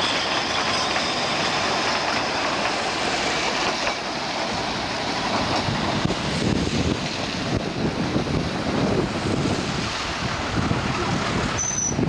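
Narrow-gauge railway carriages rolling past on the track with a steady hiss, fading about four seconds in as the train draws away, after which wind buffets the microphone in irregular low gusts.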